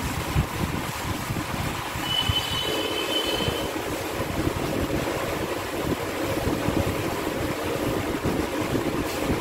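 Chalkboard duster rubbing chalk off a blackboard in uneven wiping strokes. A short high whistling tone comes in about two seconds in and lasts about a second and a half.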